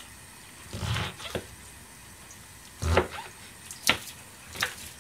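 Kitchen knife cutting through oyster mushrooms and knocking on a stainless steel counter. There are about five separate chops at uneven intervals, and the heaviest come about a second in and again near three seconds.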